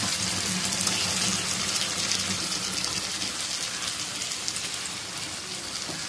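Thick tomato-onion masala sizzling steadily in a non-stick kadai as boiled eggs go in, an even hiss with a faint low hum underneath.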